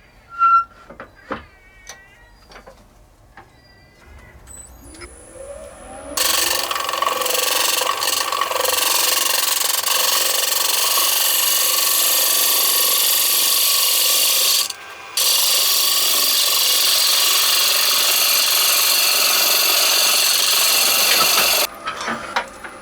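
A few small clicks, then a woodturning lathe spinning up with a rising hum. About six seconds in, a tool goes against the spinning oak blank: a loud, steady noise lasting some fifteen seconds, broken by a brief lift of the tool about halfway, and stopping a second before the end.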